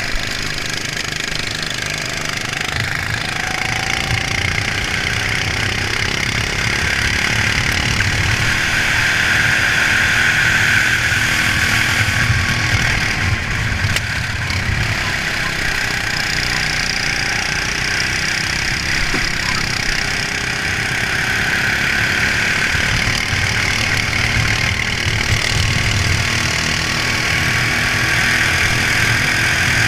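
Racing kart engine running hard at race pace, heard from the onboard camera with wind rush, its sound swelling and easing as the kart goes through the corners.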